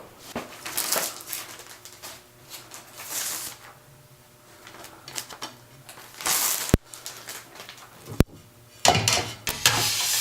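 Hands working the 3D printer's glass bed and its binder clips: scattered bursts of rustling and scraping, with two sharp clicks about a second and a half apart near the end.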